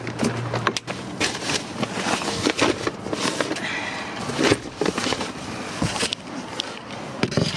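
Bags being carried and handled: irregular knocks, clunks and rustling as the heavy bags are moved about and set down.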